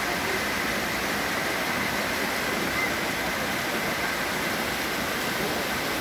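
Mountain stream and waterfall cascading over rocks: a steady, unbroken rush of falling water.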